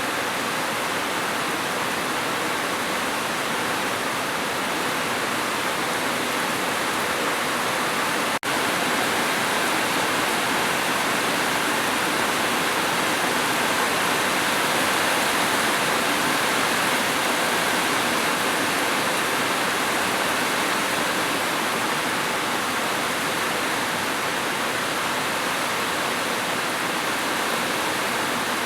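Heavy, steady rain: a dense, even hiss with no separate drops standing out. About eight seconds in there is a momentary dropout, like a splice in the loop.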